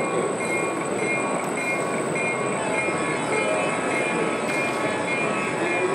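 Model freight train running over the layout's track and points, the wagons' wheels making a steady rolling noise, over a background of crowd chatter in the hall.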